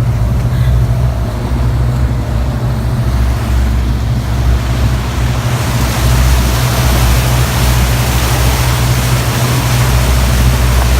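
Steady low rumble of a moving vehicle, with wind noise on the phone microphone growing stronger about five seconds in.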